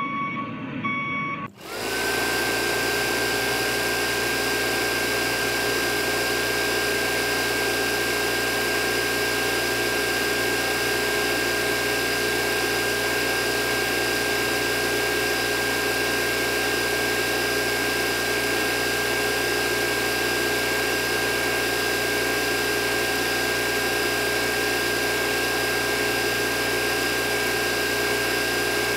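A small electric water pump switches on about two seconds in, quickly spins up to a steady whine, and runs evenly, pumping water up a hose and out through a pipe into a tray.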